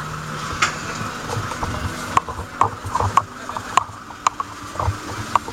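Irregular series of short clicks and light knocks, over a low steady hum that fades after the first couple of seconds.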